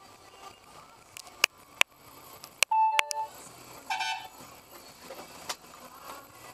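Street traffic heard through a car's dash cam, with two short vehicle horn honks, one a little before three seconds in and one about four seconds in, and a few sharp clicks just before them.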